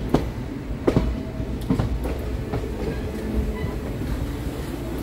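Passenger train running along the track: a steady low rumble of the coaches with wheels clicking over rail joints, including a few sharp knocks in the first two seconds.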